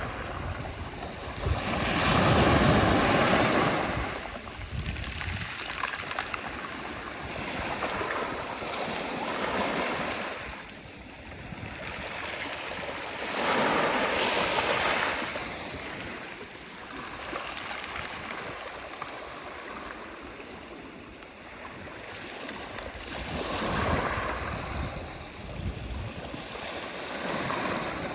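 Sea waves breaking and washing in, in slow surges about every ten seconds. The largest comes near the start, with others about halfway through and near the end, over a steady hiss of surf.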